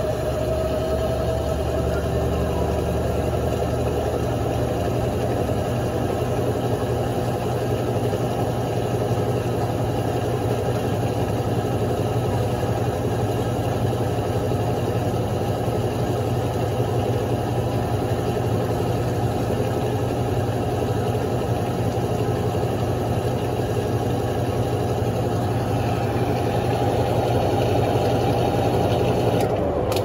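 Electrolux LF10 top-loading washing machine spinning its tub on the spin cycle: a steady motor hum and whir that grows a little louder near the end.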